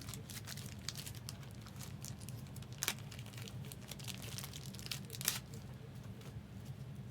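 Trading card pack wrappers crinkling and tearing as packs are opened and the cards handled: a run of light crackles, with two louder ones about three and five seconds in.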